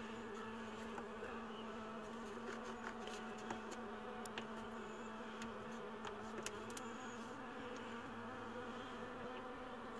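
Faint clicks of a Mazda 2 factory radio's buttons and knob being worked, over a steady low buzzing hum. The radio itself puts out no sound: it is switched on but silent, the fault being fixed.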